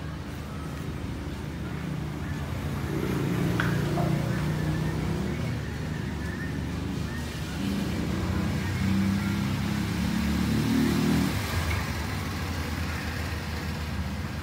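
Low engine hum of a motor vehicle passing nearby, swelling twice and then easing off.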